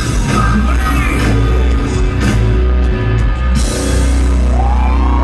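Live rock band playing loud, with drums, bass and electric guitar, heard from within the concert crowd. A bit over three and a half seconds in, a cymbal crash lands and the band holds a sustained chord.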